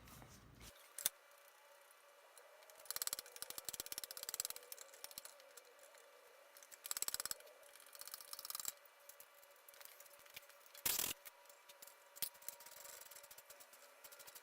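Hand tools working on a shock absorber: bursts of rapid ratchet-like clicking a few seconds in and again past the middle, with one sharper clatter near the end, over a faint steady hum.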